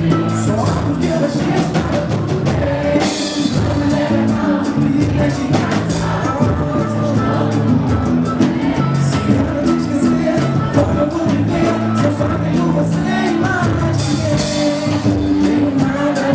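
Live samba group performing a song: sung vocals over band instruments and steady percussion hits.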